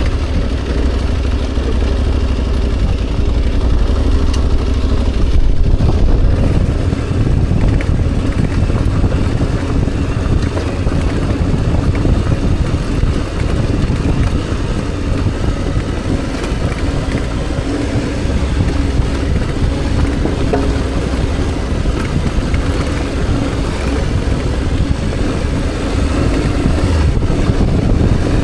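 Motorcycle engine running steadily under way, mixed with wind and road noise.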